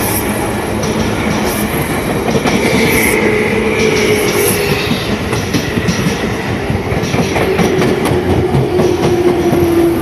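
Tobu Tojo Line electric commuter train passing close by over a level crossing, its wheels clattering over the rail joints, with a steady tone that slowly falls in pitch.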